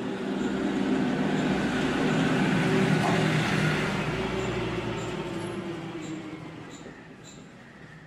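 A passing motor vehicle's engine: a steady hum that builds to its loudest about three seconds in, then fades away.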